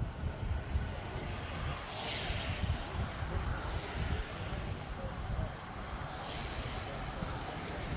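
Road bicycles riding past on the road, each passing as a swell of swish, about two seconds in and again around six to seven seconds as one rides close by, over low wind rumble on the microphone.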